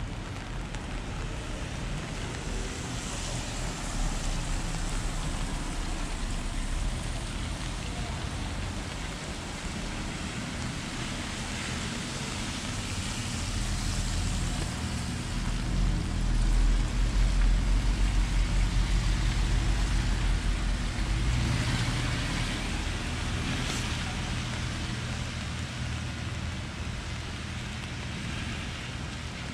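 A motor vehicle passing close on a wet street, its low engine rumble swelling in the middle and then fading, over steady rain hiss.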